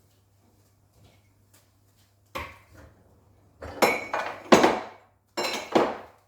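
Dishes clattering and clinking as they are lifted out of a dishwasher and set down: a single knock about two seconds in, then a run of loud clatters in the middle and another near the end.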